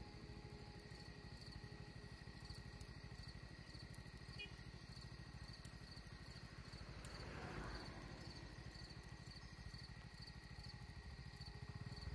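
Faint outdoor ambience of insects chirping in a steady, high, pulsing trill about twice a second, over a low rumble. A brief soft rush of noise rises and fades about seven seconds in.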